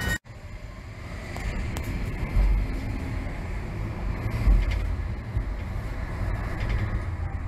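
Tram running as it pulls away from a stop, heard from inside the car: a steady low rumble of motors and wheels on the rails, with two heavier thumps about two and a half and four and a half seconds in.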